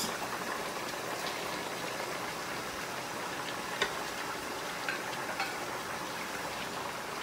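Curry sauce simmering in a pot, a steady bubbling hiss, with a few faint clicks as sliced vegetables are tipped in from a plate and stirred with a wooden spoon.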